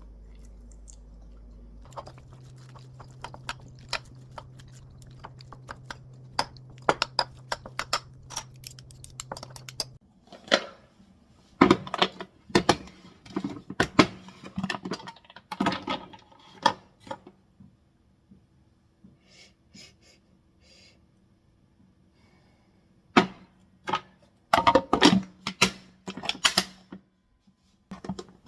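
Irregular clicks, taps and clatter of kitchen utensils and dishes being handled, sparse at first and busier from about ten seconds in.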